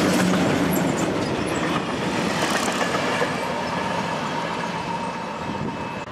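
Freight train of covered sliding-wall wagons rolling past on the rails and pulling away. The wheel and wagon noise fades steadily as the last wagon recedes.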